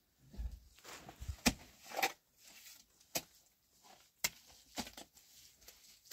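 A handful of sharp knocks and clicks at irregular intervals, the clearest about one and a half, two, three and four seconds in, with some low rumbling in the first second or so.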